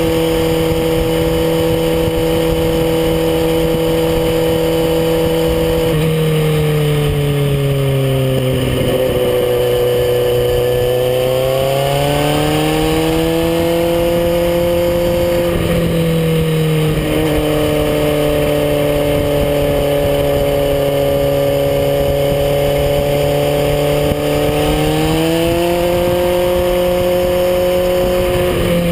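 Kawasaki Z800e's inline-four engine running under a rider, holding a steady pitch at first. The pitch drops away from about six seconds in, climbs again from about twelve seconds, steps a couple of times and rises once more near the end.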